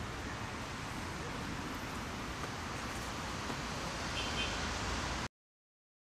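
Steady urban outdoor background noise, a low traffic-like rumble under an even hiss, that cuts off abruptly about five seconds in, leaving silence.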